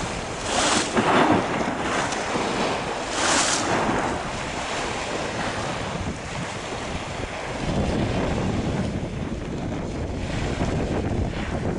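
Wind and choppy sea waves breaking against a pier wall, with two louder splashes of surf within the first four seconds. From about eight seconds in, heavy wind buffets the microphone.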